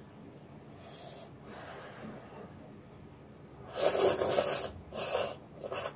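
Slurping hot vegetable noodles: one long, loud slurp about four seconds in, then two shorter slurps.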